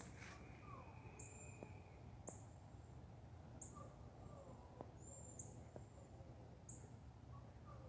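Faint birdsong: short, high chirps repeated about once a second, with softer, lower calls that slide down in pitch, over a faint low rumble.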